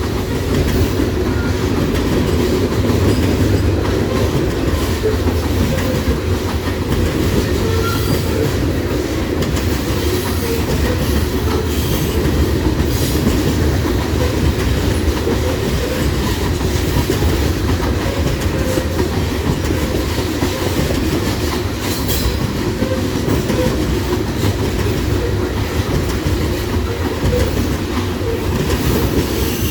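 Loaded coal hopper cars rolling past in a long freight train: a steady heavy rumble with the clickety-clack of wheels over rail joints and faint wheel squeal now and then.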